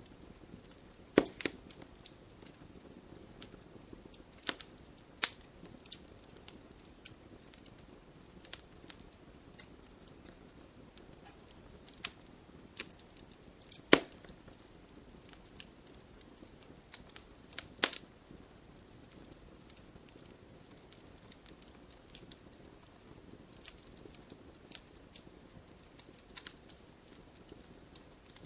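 A burning wooden cabin: fire crackling over a soft hiss, with sharp pops and cracks of burning timber at irregular intervals.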